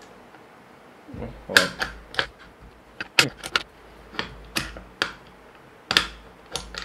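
Quick-release plate of a Manfrotto MVH502AH fluid video head being slid and pushed against its clamp: a string of sharp, irregular clicks and clacks. The plate does not clip in because its mounting bolts hang low. Some knocks carry a low rumble from the desk.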